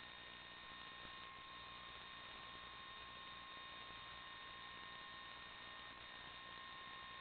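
Faint, steady electronic hiss and low hum with a few thin, steady whine tones, unchanging throughout: the noise of an empty audio channel on an analog FPV video recording, with no sound of the drone itself.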